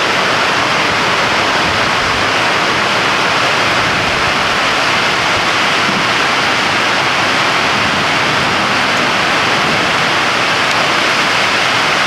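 Heavy rain pouring down, a steady loud hiss that does not let up.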